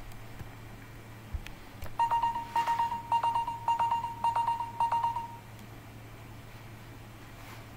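Electronic beeping alarm: one tone just under 1 kHz pulsed in rapid beeps for about three seconds, starting a couple of seconds in.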